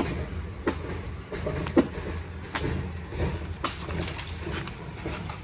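Irregular sharp knocks and clacks, roughly one a second, over a steady low rumble.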